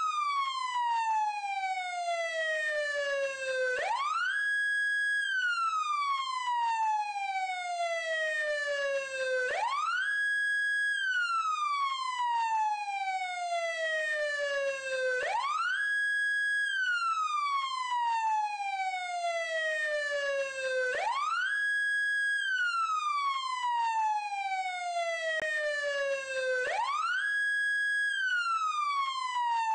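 Siren wailing in a steady repeating cycle: the pitch sweeps up quickly, holds briefly at the top, then slides slowly down, about once every five to six seconds, five times over.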